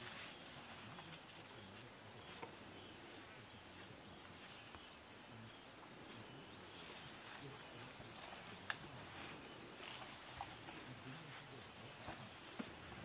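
Faint bush ambience of insects chirping: a high, evenly repeating chirp over a steady hiss, with a few soft clicks and one sharp click about nine seconds in.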